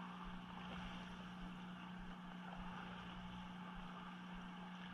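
Steady low hum of a boat's motor running, with a faint even hiss above it.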